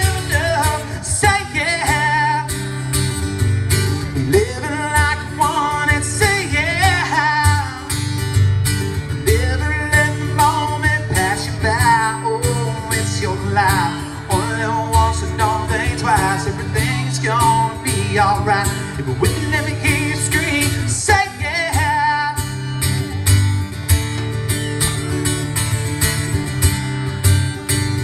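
Live country-rock band playing through a PA system: acoustic guitar, bass and a steady drum beat, with a bending melody line carried over the top.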